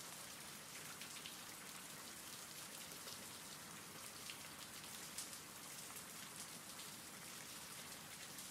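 Faint, steady rain with scattered small drops pattering, a rain ambience bed.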